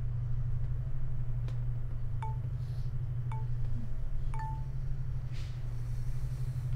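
Three short, high chime pings about a second apart, the last ringing a little longer, over a low steady hum.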